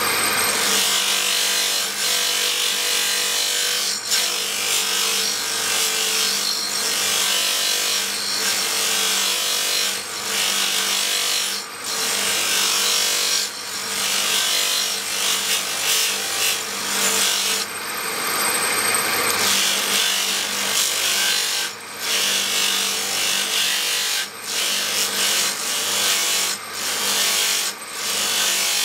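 Steel knife blade being ground on a motor-driven abrasive grinding wheel: a harsh, continuous grinding hiss over the steady hum of the electric motor. It breaks off briefly several times as the blade is lifted from the wheel, with one longer break about two-thirds of the way through.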